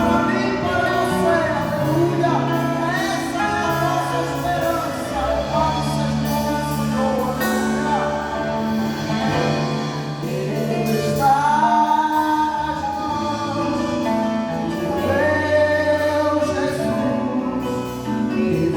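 Gospel worship band performing a Christian song: voices singing over sustained low instrumental notes.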